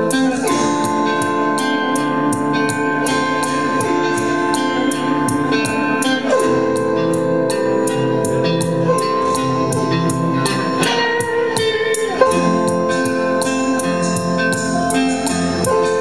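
A slow live band instrumental: an autoharp is plucked with chords held down, over sustained electric guitar notes and a steady ticking beat of about three a second, with a couple of sliding notes.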